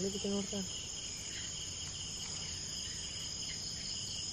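A steady chorus of insects: several continuous high trills at different pitches, unbroken throughout.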